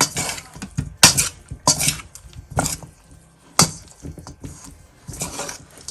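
Irregular clinks and knocks of a utensil and bowl, about six sharp strikes with short ringing, as chicken wings are tossed in a batter and seasoning coating.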